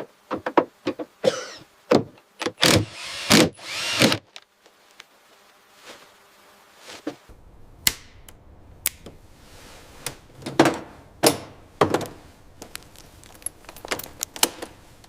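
A series of irregular sharp knocks and bangs, some ringing briefly, bunched in the first four seconds and again from about seven seconds on, with a quieter gap between.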